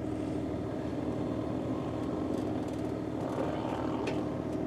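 Excavator's diesel engine and hydraulics running steadily as the arm is lowered: a constant low hum with a steady higher note over it.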